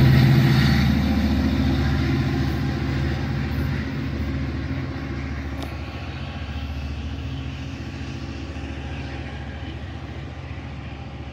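Long Island Rail Road diesel train of bilevel coaches pulling away: a steady low engine drone that fades evenly as the train recedes.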